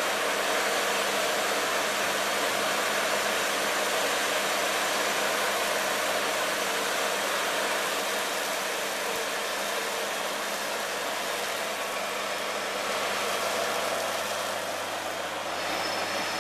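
New Holland LS170 skid-steer loader's diesel engine running steadily while the raised bucket tips out a load of dirt.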